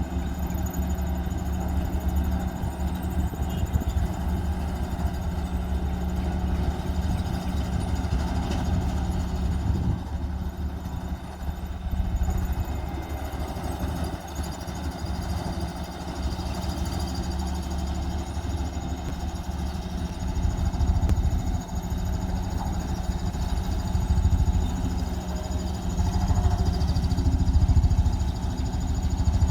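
Diesel engine of heavy road-construction machinery running steadily with a deep low hum, getting louder a few times in the last third.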